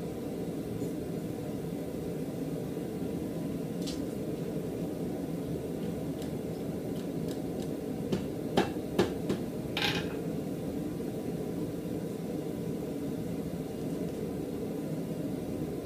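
Coal forge's air blower running with a steady, even drone. About halfway through come a few sharp metal clinks and a brief scrape.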